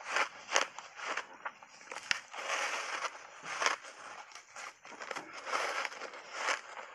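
Ice chunks coated in matcha and milk powder being bitten and chewed close to a clip-on microphone: loud crunching and crackling, with several sharp cracks as the ice breaks between the teeth.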